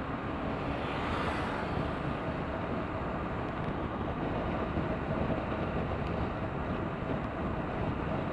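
Steady wind and road rush from riding a 2017 BMW R1200RT, with its boxer twin engine running underneath, and a brief swell of rushing noise about a second in.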